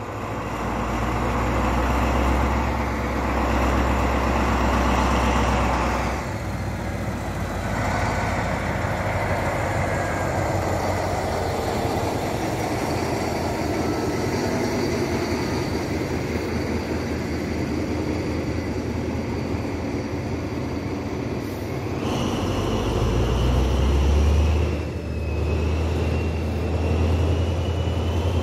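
SNCF BB 67400 diesel locomotive running with a deep engine hum as its train of coaches moves past. The hum is heaviest in the first few seconds and again near the end, where a rising whine joins in.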